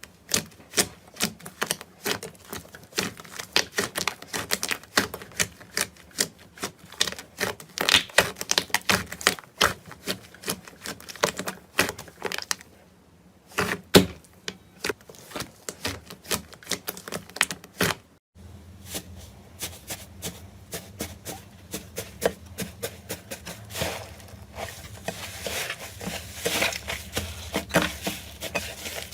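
Rapid, irregular clicking and tapping, many small sharp clicks close together, with a short pause about 13 seconds in and an abrupt cut about 18 seconds in, after which the clicks continue over a low hum.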